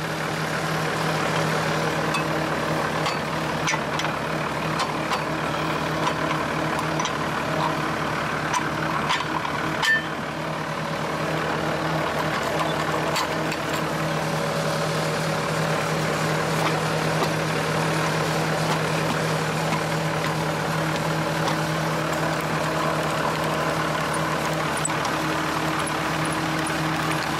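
A heavy machine's engine idling steadily, an even low hum, with a single sharp knock about ten seconds in.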